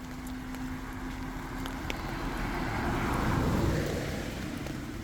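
A vehicle passing, its noise swelling to a peak about three and a half seconds in and then fading, over light rain pattering.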